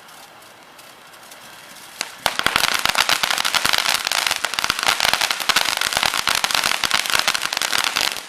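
Fireworks going off: a single sharp pop about two seconds in, then a dense, rapid run of small firecracker pops for about six seconds that stops abruptly.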